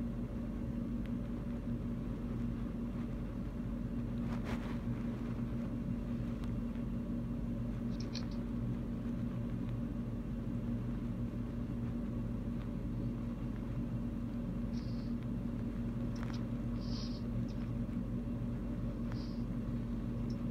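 Steady low electrical or machine hum, even in level throughout, with a few faint, brief hisses over it.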